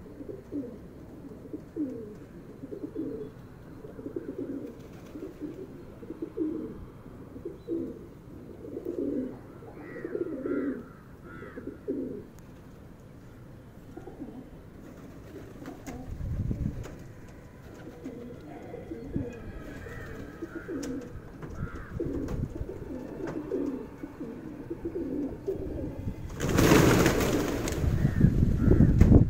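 A flock of feral pigeons cooing over and over. About 26 seconds in, the flock takes off at once in a loud clatter of wingbeats.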